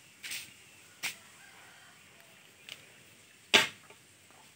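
A curved hand blade chopping into a green bamboo pole, splitting it into slats: four sharp strikes at uneven intervals, the one about three and a half seconds in the loudest.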